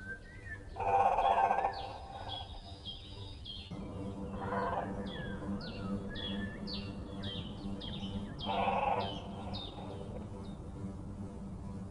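Several birds calling: a run of quick, high, falling chirps, broken about every four seconds by a louder, lower call lasting under a second.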